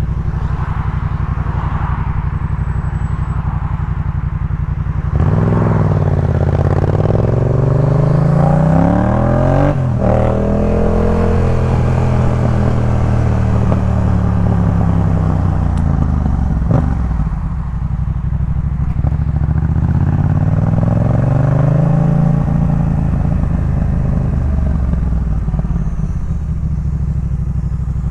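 Yamaha MT-07's 689 cc parallel-twin engine through a Jeskap K4 full exhaust under way. It runs steady at first, then about five seconds in the revs climb to a gear change near ten seconds, climb again later and ease back off near the end.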